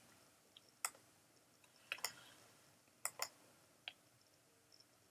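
Computer mouse clicks: about six short, sharp clicks, single ones near one and four seconds and quick pairs around two and three seconds, against a quiet room.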